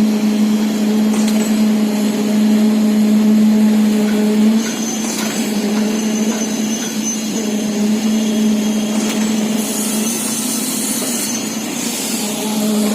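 Steady drone of a vehicle on the move, with an even hiss of rain and wind over it.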